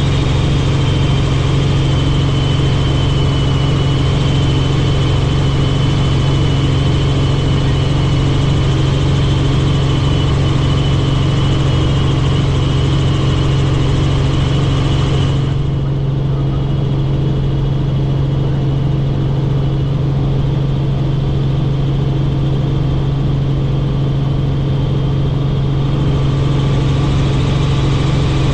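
Helicopter in flight: a steady, loud drone of its turbine engine and rotors, with a thin high whine on top. About halfway through, the high whine and hiss drop away sharply, while the low drone carries on unchanged.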